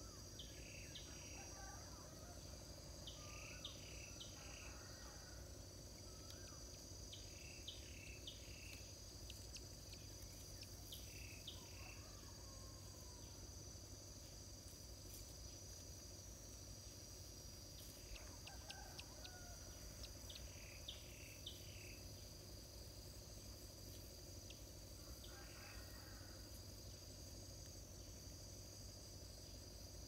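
Faint, steady, high-pitched insect trill, with short bird chirps in quick groups of two or three every few seconds.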